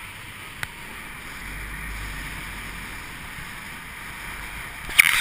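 Steady rush of airflow over a paraglider pilot's action-camera microphone in flight, with a low rumble swelling in the middle. A single sharp click comes a little after the start and a cluster of loud knocks near the end.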